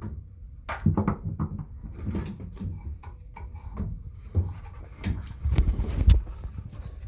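Scrapes, rubs and irregular knocks of a truck's tail light assembly being worked loose by hand, with a few heavier thuds about five and a half to six seconds in.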